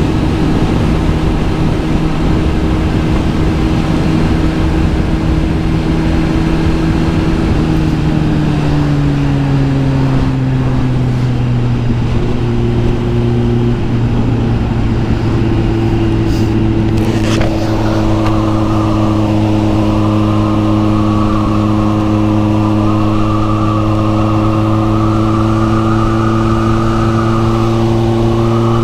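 Kawasaki Z900 SE's inline-four engine running steadily through an SC Project S1 exhaust while riding. Its pitch drops to a lower steady note about eight seconds in and holds there.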